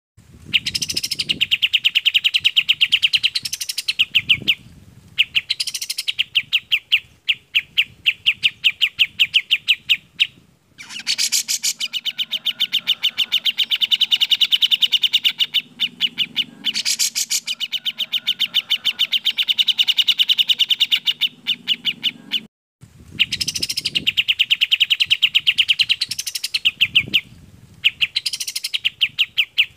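Recorded song of kapas tembak and cucak jenggot, two bulbuls: long runs of fast, rapid-fire repeated high notes, about ten a second, with sweeping rising calls mixed in. The runs are broken by two short pauses.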